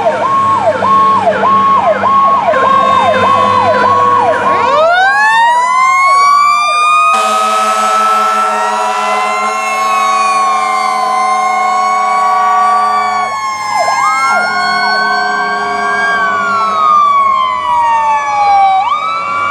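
Fire truck sirens and air horn. A siren yelps quickly, then a siren winds up about five seconds in. A long air horn blast sounds from about seven to thirteen seconds, and after it the sirens wail, rising and falling slowly.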